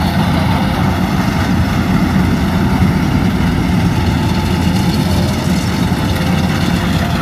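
Rice combine harvester's engine running steadily and loudly as the machine works its way down the field.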